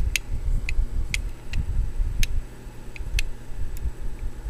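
Light, irregularly spaced clicks of small die-cast model parts being moved by hand, about eight in all, over a low rumble of handling.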